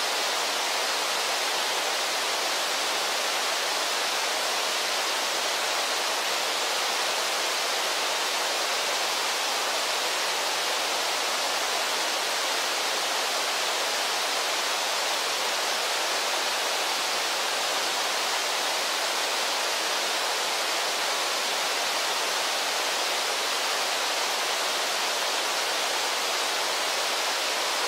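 Waterfall on a river pouring over a low rock ledge: a steady, unbroken rush of white water.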